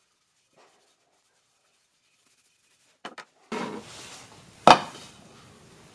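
About three seconds of near silence, then two light clicks, followed by rubbing and handling of parts on a wooden surface. A little before the end comes one sharp knock, as a cast-iron pipe floor flange is set down on an oak base plate.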